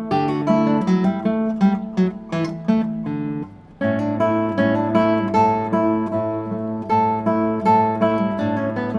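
Background acoustic guitar music: a run of plucked notes, broken by a short gap about three and a half seconds in, then resuming over a held bass note.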